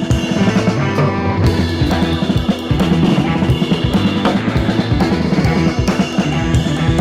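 Background music: a rock track with a full drum kit, bass drum and snare keeping a steady beat.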